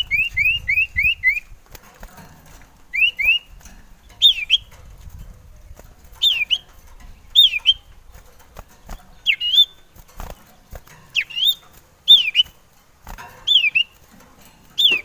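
Male common iora (cipoh sirtu) singing. It opens with a quick run of six short rising whistles, then a pair of them, then loud down-and-up slurred whistles repeated about once a second, with a few faint knocks in between.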